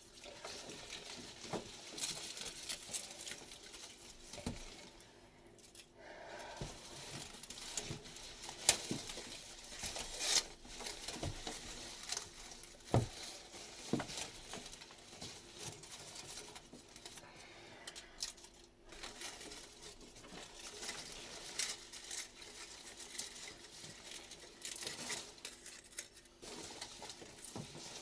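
Close-up handling sounds: irregular rustling and crinkling, with scattered light clicks and taps.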